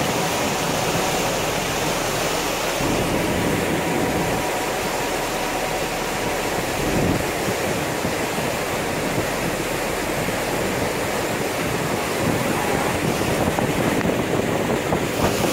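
Steady rushing of water and wind noise on the microphone from aboard a moving ferry.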